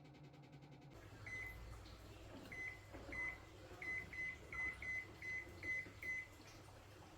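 Aqua washing machine's control panel beeping as its buttons are pressed: about ten short, high beeps, some in quick pairs. A low hum stops about a second in, just before the first beep.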